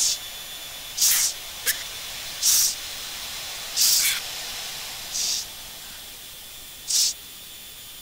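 Quick, sharp breaths hissing into a helmet boom microphone about every second and a half, six in all, over a steady intercom hiss: a jet passenger's anti-G straining breaths while the jet pulls G in a break turn.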